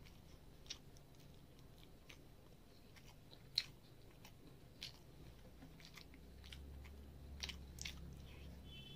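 Faint wet clicks and smacks of fingers mixing rice, fried fish and gravy on a steel plate, with the sharpest click about halfway through. Near the end a handful goes into the mouth and is chewed.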